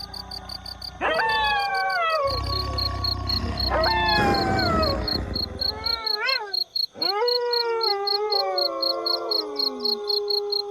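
A chorus of wolves howling: long, overlapping calls that start high and slide down in pitch. New howls come in about a second in, around four seconds and around seven seconds.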